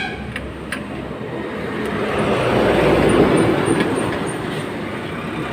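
A vehicle going past: a rushing noise that swells to its loudest about three seconds in and then fades, with a couple of light clicks near the start.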